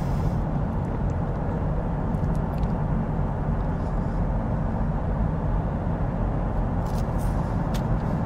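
Steady engine and tyre noise heard inside the cabin of a car with an automatic gearbox while it drives along, with a few faint clicks near the end.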